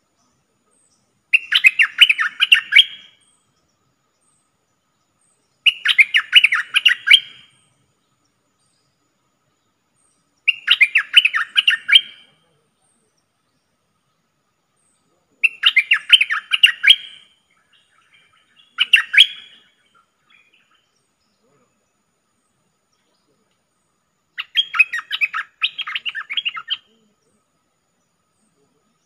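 Caged decoy bulbul (merbah lekir) calling in short bursts of fast chattering notes. Six phrases come about every four to five seconds, the fifth one brief.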